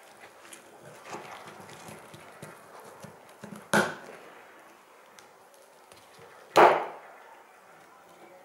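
Rustling as a fabric knife sheath and its straps are handled, with two loud, sharp clicks about three seconds apart, the second the louder.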